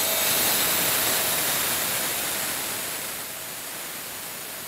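Wet tile saw running with a pumice stone pressed against its blade to clean it: a steady grinding hiss with water spray, which eases off gradually over the last couple of seconds.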